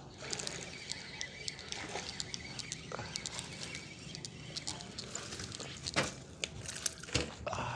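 Fishing tackle being worked while a fish runs with the line after taking a topwater frog lure: irregular clicks and scrapes from the reel and rod, with a couple of louder knocks near the end.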